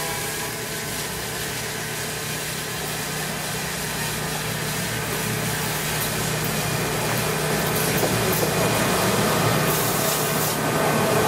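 John Deere 245G excavator, rail-mounted as a brush cutter, with its diesel engine running as it travels along the track: a steady engine hum with a few higher steady tones, growing louder as the machine approaches.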